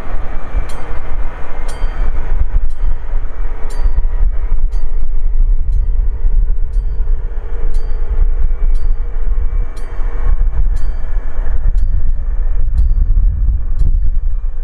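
A train rolling past at close range: a loud, steady rumble with a sharp click about once a second, each followed by a brief high ring.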